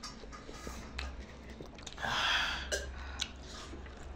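Quiet mouth sounds of a person chewing biryani, with a few small clicks and a short breathy hiss about two seconds in.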